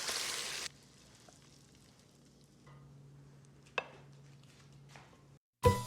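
Chicken and vegetable stir-fry sizzling in a hot pan, cut off abruptly under a second in. After that, a faint hum and a single sharp click about four seconds in.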